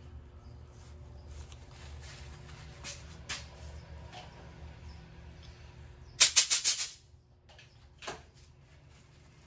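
Compressed-air blow gun on a coiled air hose firing a quick string of short hissing blasts, about six in under a second, a little after six seconds in. Light clicks and knocks of handling before and after.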